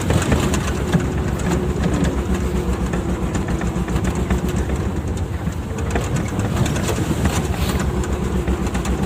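MTZ (Belarus) tractor's diesel engine running steadily while under way, with a constant rattle and clatter from the towed trailer body on a rough, puddled dirt track.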